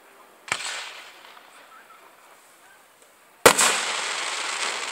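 Aerial fireworks exploding: a sharp bang about half a second in, then a louder bang about three and a half seconds in, followed by a long crackling hiss.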